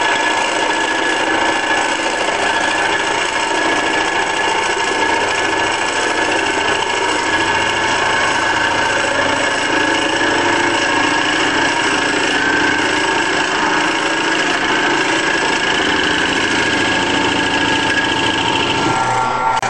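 Converted 10 x 18 wood lathe running under power while machining a workpiece: a steady motor and spindle sound with several held tones. A lower layer of the sound drops away near the end.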